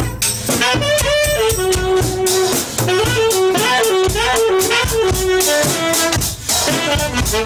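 Band music: a fast wind-instrument melody played over drum kit and cymbals.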